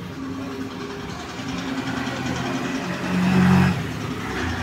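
A motor vehicle's engine running with a steady low hum, growing louder for about a second near the three-second mark.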